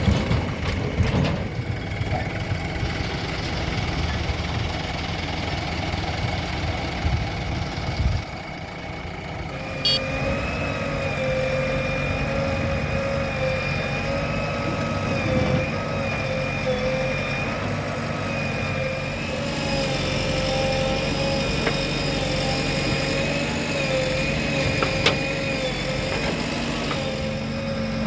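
Diesel engines of a backhoe loader and tractors running while mud is loaded. About ten seconds in, a steady, slightly wavering high whine joins the engine rumble and holds.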